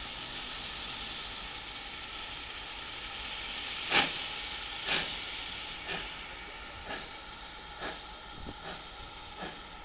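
Steam locomotive hissing steadily, then starting away: about four seconds in comes a loud exhaust chuff, followed by six more chuffs about a second apart, growing fainter and slightly quicker.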